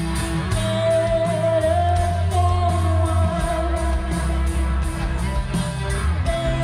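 Live rock band playing: singing over guitar and bass, with long held notes and a steady beat.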